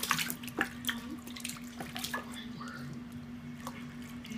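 Baby kicking and splashing in shallow soapy water in a plastic baby bathtub: several quick splashes in the first couple of seconds, then softer sloshing. A steady low hum runs underneath.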